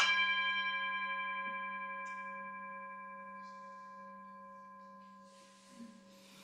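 Singing bowl struck once and left ringing, several overtones sounding together and fading slowly over about six seconds. A soft rustle and a light bump come near the end.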